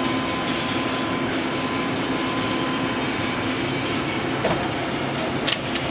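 Steady mechanical hum of a powered-up CNC Swiss lathe and its auxiliary units, with a low drone and a faint high whine. A few sharp clicks come near the end.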